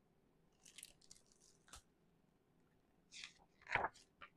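Pages of a hardcover picture book rustling and flipping as a page is turned, in faint short rustles and a click, with a louder rustle and soft bump near the end.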